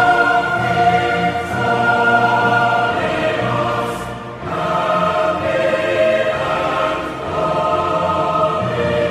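A choir singing slow, held chords, one chord giving way to the next every second or two.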